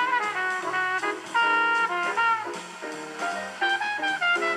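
Jazz music playing on a radio: melody notes, some held, over a bass line that steps from note to note.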